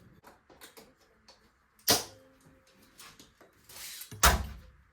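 Small clicks and two sharp knocks, one about two seconds in and a louder one near the end, from tools and bike parts being handled while a mountain bike is taken apart.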